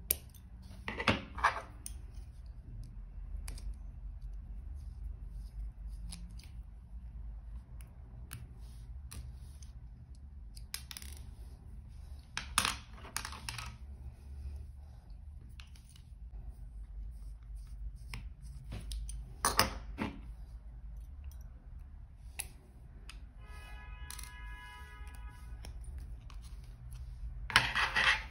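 Small metal hand tools and eyeglass parts clicking and knocking against a workbench during an eyeglass hinge replacement: flat-nose pliers, a precision screwdriver, tiny hinge screws. The knocks come irregularly over a steady low hum, and a brief squeak-like tone sounds about three-quarters of the way through.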